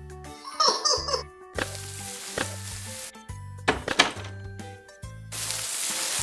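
Cartoon background music with a repeating bass line, overlaid with sound effects: a few sharp hits in the middle and a steady hiss starting near the end.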